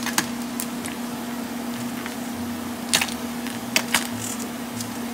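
Oil sizzling in a frying pan as fried rolled tacos are lifted out with metal tongs into a wire-mesh strainer, with several sharp clicks of the tongs against the strainer and pan. A steady hum runs underneath.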